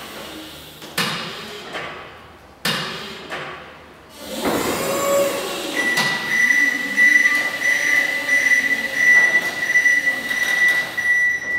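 Still electric counterbalance forklift working a pallet: two sharp metal clunks, then a short whine of its electric motor, then a steady high-pitched reversing warning tone sounding as the truck backs away with the load.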